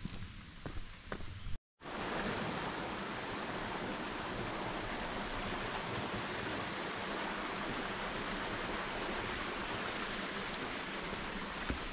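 A few footsteps on dry forest litter for about the first second and a half. After a sudden cut, a steady, even rushing noise with no rhythm fills the rest.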